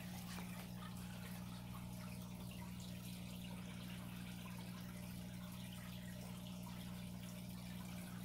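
Home aquarium equipment running steadily: a low electric hum with a faint trickle and bubbling of water from the aeration.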